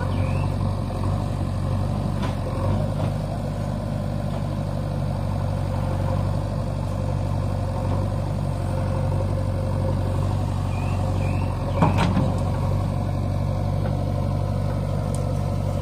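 Swaraj 744 FE tractor's diesel engine idling steadily, with a single sharp knock about twelve seconds in.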